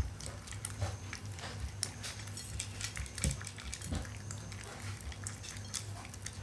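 Shiba Inu eating dry kibble topped with mackerel from a stainless-steel bowl: an irregular run of small crunches and clicks of chewing, several a second.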